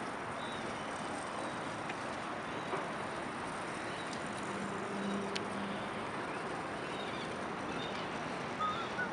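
Steady outdoor city ambience: an even wash of distant traffic noise, with a few faint bird chirps and a brief low hum about five seconds in.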